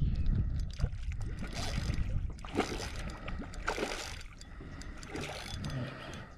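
Water splashing and sloshing in a few short swishes, over a steady low rumble of wind on the microphone.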